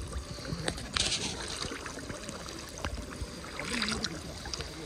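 Water sloshing and splashing around people wading waist-deep through a shallow backwater, with louder splashes about a second in and again near the end.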